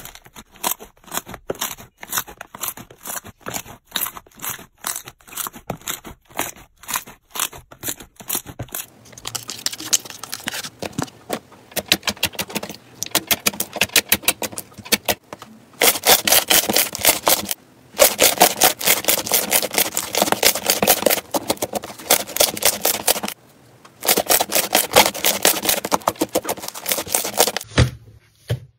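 Slime being squeezed and pressed by hand, giving rapid wet clicking and crackling. The clicks are sparser at first, then denser and louder through the second half, broken by two short pauses.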